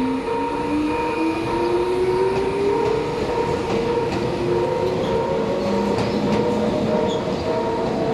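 An electric train pulling away through a level crossing, its motor whine rising steadily in pitch as it accelerates. Under it, the crossing's warning alarm rings as a steady two-tone signal.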